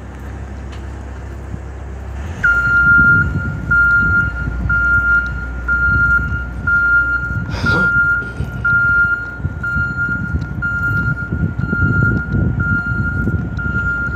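Truck reversing alarm starting about two seconds in: one high beep repeated at a steady, even pace, over the low rumble of the truck's engine.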